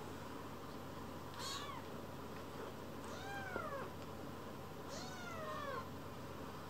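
Young kitten mewing three times, about a second and a half apart: short high-pitched mews, the first falling in pitch and the next two arching up then down.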